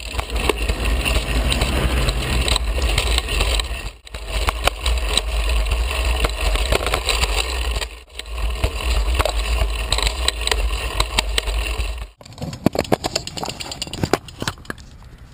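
Heavy wind rumble on the microphone and rolling road noise from a moving handcycle, in stretches of about four seconds that each cut off abruptly. About three-quarters of the way through it drops to a quieter rolling sound with scattered light clicks.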